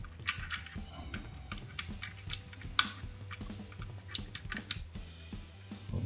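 Clicky blue mechanical key switches on an AULA Wind F2058 keyboard being pressed by hand: about a dozen sharp, irregular clicks, the loudest a little under three seconds in.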